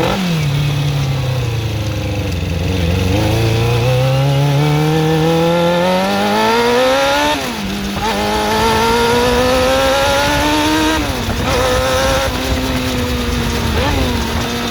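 Suzuki GSX-R400 motorcycle engine running under way: the revs fall, then climb steadily for several seconds and drop suddenly about seven seconds in, climb again and drop about eleven seconds in, like a bike pulling through upshifts, then ease off near the end.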